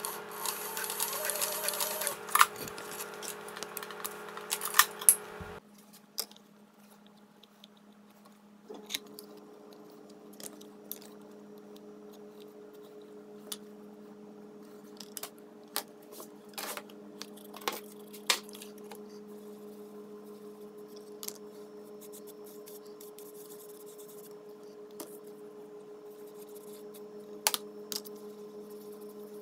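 A leather sewing machine running for the first few seconds, with a few sharp clacks. Then scattered light clicks and taps of leather pieces, thread and tools handled on a granite slab, over a steady low hum.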